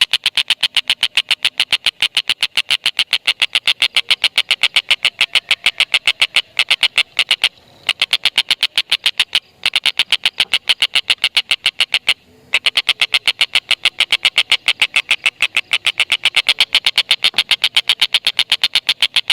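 Tengkek buto (stork-billed kingfisher) giving its long 'ngekek' chatter: a fast, even run of sharp repeated notes, about six a second, broken by a few brief pauses.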